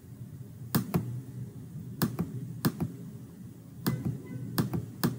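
About six sharp clicks at irregular intervals, over a faint low background hum.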